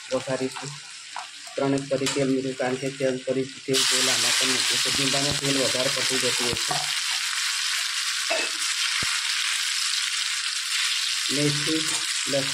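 Hot oil in a steel kadai bursts into a loud, steady sizzle about four seconds in, as a minced paste goes into it, and keeps frying.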